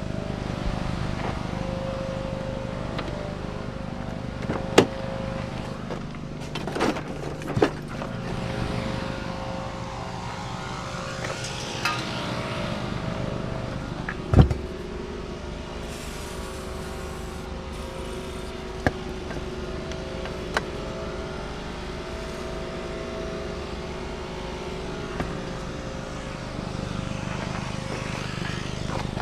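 A motor vehicle running steadily, with a few short knocks and clicks; the loudest is a thud about halfway through.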